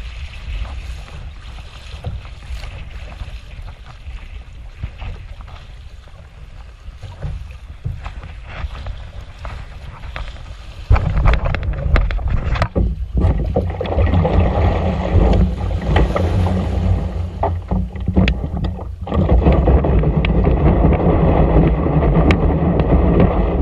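Wind buffeting the microphone on a kayak at sea, with occasional water splashes. The wind noise gets much louder about eleven seconds in and louder again near twenty seconds.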